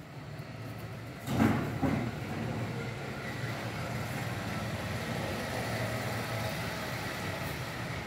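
Steady low rumble of a running motor, like a vehicle engine, with a loud double swell of noise about a second and a half in.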